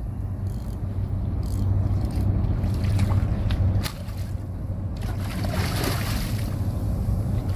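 Steady low rumble of sea water washing against the concrete breakwater blocks, with a few faint clicks.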